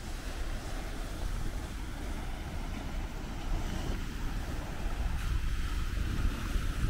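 Wind buffeting the microphone, a fluctuating low rumble over a steady rushing noise.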